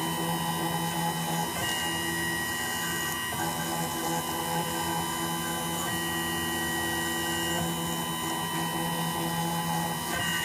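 CNC milling machine running a small end mill into an iPhone logic board: a steady spindle hum and whine. Some of the machine's higher tones switch on and off every couple of seconds as the cut moves.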